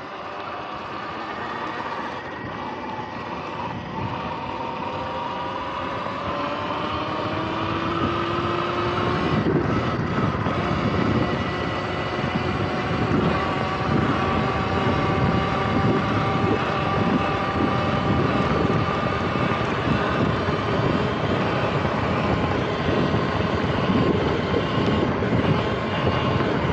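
Electric dirt bike's motor whining, its pitch gliding up and down with speed, over the rumble of tyres on grass and wind. The rumble grows louder about a third of the way in as the bike picks up speed.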